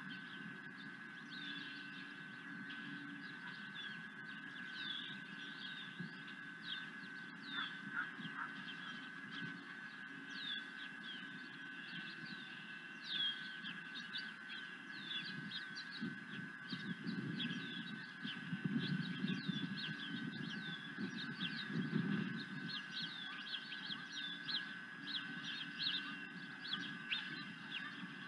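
Birds calling outdoors: many short, high, falling chirps repeating through the whole stretch, over a steady high hum and a low rumble.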